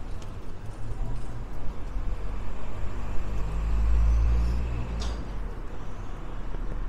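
Outdoor street sound dominated by a low rumble of wind buffeting the microphone along with street traffic, swelling for a couple of seconds in the middle. There is a single sharp click about five seconds in.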